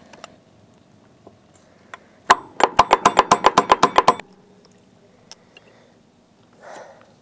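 Two-speed Barient No. 22 sailing winch from 1968: a single knock, then a quick even run of clicks, about ten a second for a second and a half, typical of the winch's pawls ratcheting as the drum is turned.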